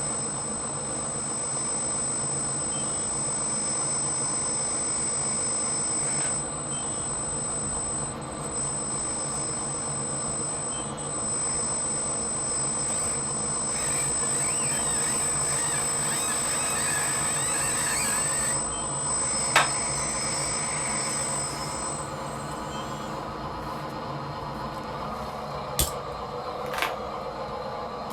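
Steady high whine of an RC construction machine's motors and hydraulic pump running, its sound changing about two-thirds of the way through. A few sharp clicks come near the end.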